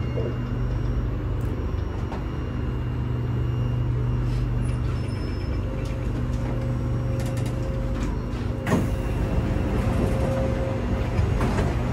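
Cabin noise of an SMRT C751B metro train pulling into a station: a steady low running hum, with a faint steady tone in the second half. A single sharp knock sounds near the stop, about nine seconds in.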